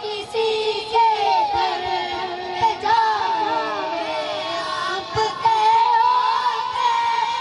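A group of boys singing a naat together, amplified through handheld microphones.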